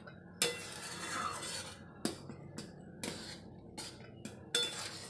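Wooden spatula stirring thick fruit-and-jaggery pickle in a steel kadai, scraping the pan and knocking against its side about seven times at uneven intervals. The jaggery syrup has nearly cooked down.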